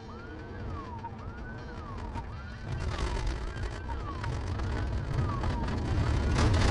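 Police siren wailing, rising and falling about once a second, over the patrol car's low vehicle rumble. The siren fades near the end as the rumble grows louder.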